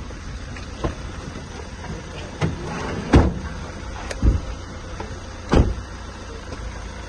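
Doors of a police van being handled and slammed shut: a series of knocks and bangs, the loudest about three, four and five and a half seconds in, over a steady low rumble.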